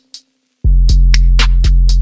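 Background music: an electronic beat with deep bass and crisp hi-hat ticks. The bass drops out briefly and comes back in about two-thirds of a second in.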